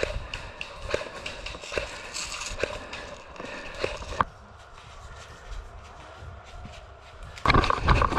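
Footsteps at an even pace, about one step a second, over rustling, stopping about four seconds in. Near the end comes a louder burst of rapid clicks.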